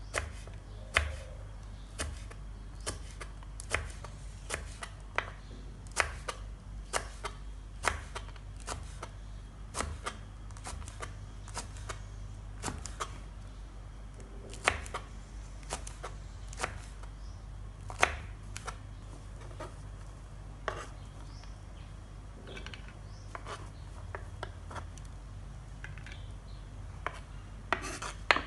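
Kitchen knife slicing green chillies on a wooden cutting board: sharp, irregular taps as the blade cuts through each slice onto the wood, about one or two a second, over a steady low hum.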